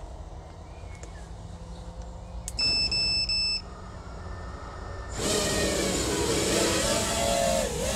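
Three short electronic beeps, then about five seconds in an FPV quadcopter's motors and propellers spin up into a loud whirring buzz, its pitch wavering up and down as the throttle changes.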